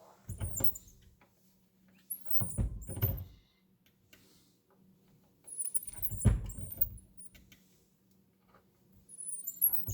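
Reloading press worked by hand to seat a bullet in a 10 mm cartridge case: high squeaks and low thuds from the press handle and ram in four short bouts.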